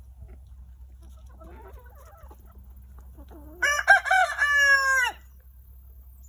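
A rooster crowing once, loudly, for about a second and a half: a few choppy notes, then a long held note that drops off at the end. Soft hen clucking before it.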